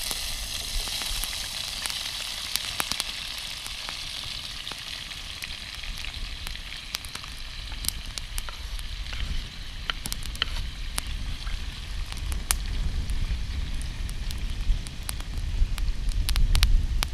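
Washed metal cooking stand being burnt in over a campfire: a steady sizzling hiss, with sharp crackles from the fire. The sizzle starts suddenly and slowly dies away, and a low rumble of wind on the microphone builds near the end.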